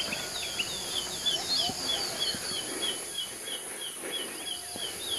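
A bird repeating short, falling chirps about three times a second, over a steady high-pitched insect drone.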